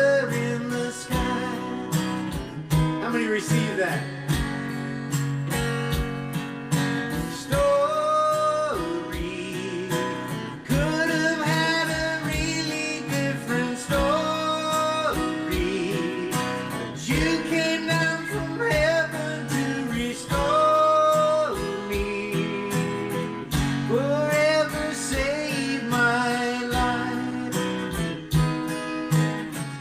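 Acoustic guitar strummed in a steady rhythm, with a man singing a slow worship song over it in long held notes.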